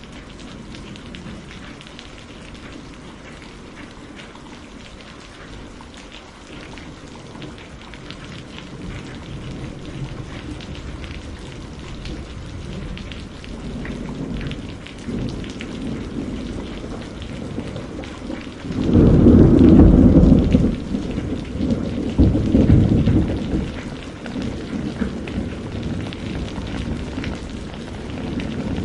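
Steady rain pattering on a surface, with a roll of thunder that builds from about halfway through. The thunder peaks loudest for a couple of seconds, swells once more and then fades back under the rain.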